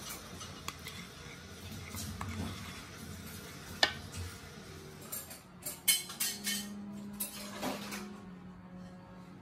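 A spoon clinking and scraping against a ceramic bowl as thick chili sauce is spooned out, with a sharp clink about four seconds in and a run of clinks around six seconds.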